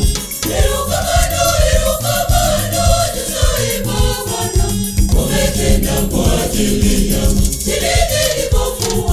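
A church choir singing a gospel song over instrumental backing, with steady bass notes and a regular beat.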